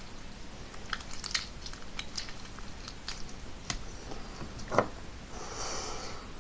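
Sticky homemade slime being squished and pulled by hand, making scattered small wet clicks and pops, the loudest a little under five seconds in, followed by a brief squelching rustle.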